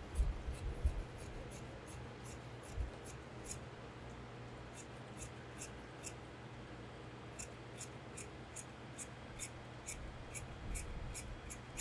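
Large tailor's shears cutting through suit trouser fabric on a table: runs of short crisp snips as the blades close, in bursts of several with short pauses between. A few dull thumps near the start.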